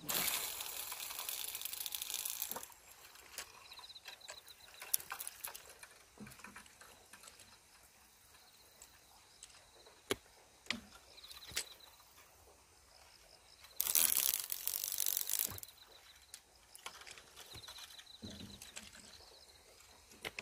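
Daiwa Crosscast 5500 spinning reels working as surf-casting rods are set out. There are two roughly two-second bursts of whirring as line runs off or is wound on, with scattered clicks between. A faint, high, repeated chirp comes and goes in the background.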